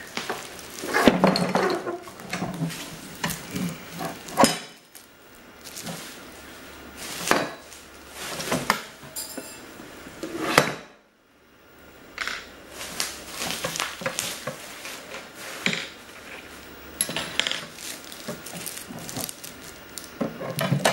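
Plastic sheeting and bubble wrap rustling while the parts of a foldable table, its white tubular legs among them, are handled, with repeated clattering knocks and clacks as they bump against each other and the tabletop.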